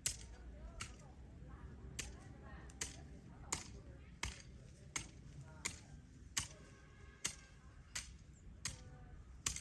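A hand tool striking over and over in an even rhythm, about one sharp chop every three-quarters of a second.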